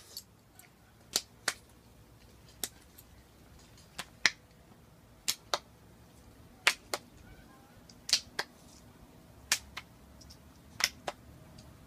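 Sharp clicks in pairs a fraction of a second apart, repeating about every second and a half, seven pairs in all, over a quiet background.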